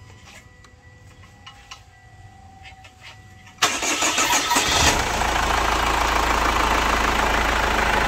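Chevrolet Captiva FL four-cylinder turbodiesel being started: after a few faint clicks, the starter cranks abruptly about three and a half seconds in, the engine catches within about a second, and it settles into a steady idle.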